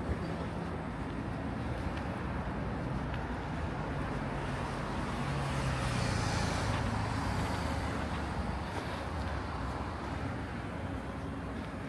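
A motor vehicle passing on the road, its engine and tyre noise swelling to a peak about halfway through and then fading, over steady traffic noise.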